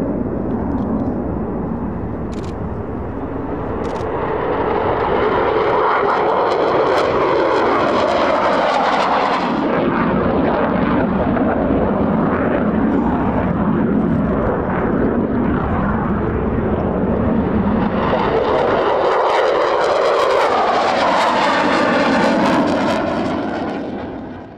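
F-16 fighter jets' engines running at takeoff power as the jets depart, a loud, continuous jet roar. It swells twice with a sweeping, shifting tone as jets pass, then cuts off suddenly at the end.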